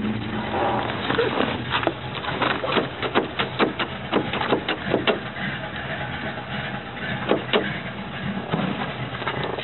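A car's engine running low and steady while the car rolls slowly, with a string of irregular clicks and knocks over it, thickest in the first half.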